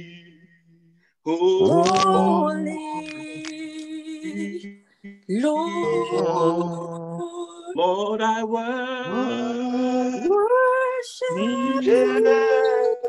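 A man singing a slow worship song unaccompanied, in long drawn-out phrases with sliding pitch and short breaks between them.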